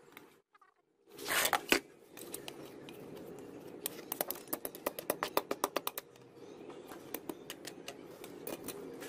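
Metal tongs scraping and clicking against freshly cast hot metal pieces and the concrete floor. A loud scrape comes about a second in, then a quick run of sharp clicks in the middle.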